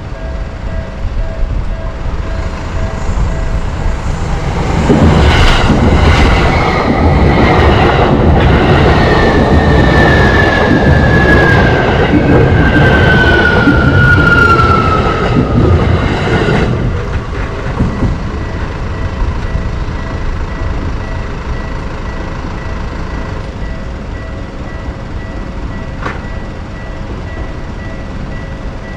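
Japanese railroad crossing warning bell ringing while an electric commuter train passes for about twelve seconds from about five seconds in; the passing train carries a whine that falls steadily in pitch, and the bell goes on ringing after it.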